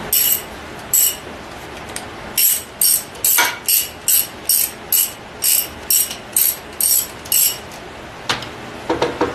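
Hand ratchet clicking on its return strokes as the bolts of a Ford 9-inch pinion support are run down, drawing the support in against its new rubber O-ring seal. The strokes come quickly, about two a second, and a few looser clicks follow near the end.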